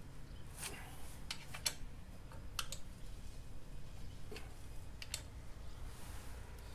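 Allen key working the bolts of a scooter exhaust's lower bracket as they are tightened by hand: about seven light clicks of tool on bolt, irregularly spaced, fading out after about five seconds.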